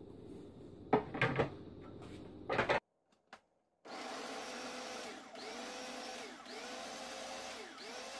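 A few plastic knocks, then after a brief gap a small electric food processor runs steadily, chopping onions, tomatoes and green chillies, its motor pitch dipping and coming back up three times.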